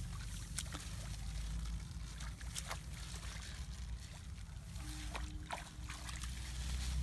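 Sloshing and small splashes of wading and groping by hand in shallow, muddy rice-paddy water, scattered irregularly over a steady low rumble.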